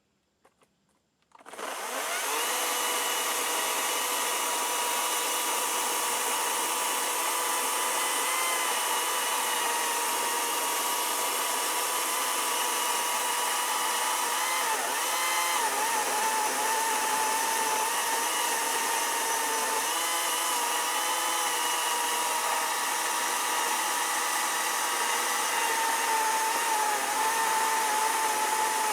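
Greenworks battery-powered chainsaw running: a steady high electric-motor whine with chain noise that starts suddenly about a second and a half in. Its pitch dips a little now and then.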